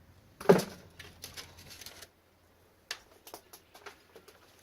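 Small scrap parts being handled and dropped while an appliance is taken apart: a loud knock about half a second in, then light clicking and rattling of loose pieces, with one sharp click near the end.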